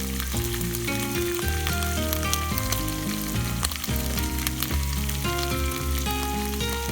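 Background music with a stepping melody and bass line, over steady sizzling with many small crackling clicks.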